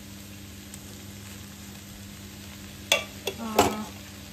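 Egg and vegetable stir-fry sizzling quietly in a nonstick frying pan, under a steady low hum. About three seconds in come three sharp knocks of a utensil against the pan as rice is tipped in, the last and loudest with a brief ring.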